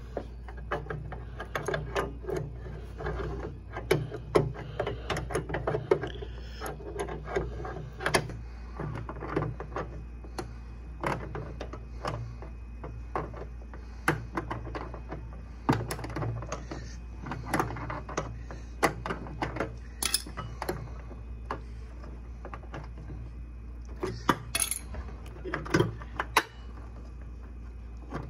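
Steel wrench and cable nut clinking and scraping against a mower deck's cable bracket as the nut is worked loose. The clicks are irregular, several a second at times, with pauses between, over a steady low hum.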